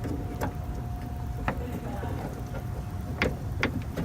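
A handful of sharp clicks and knocks from metal parts being worked by hand inside a car door, several of them close together near the end, over a steady low rumble and a faint constant tone.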